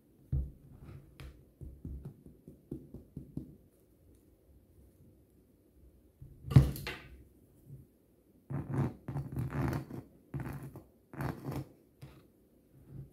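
Tapping on the underside of a freshly baked whole-wheat loaf: light hollow thumps, then one loud knock about six and a half seconds in, the hollow sound the sign that the bread is baked through. From about eight and a half seconds a bread knife saws through the crisp crust in several crunching strokes.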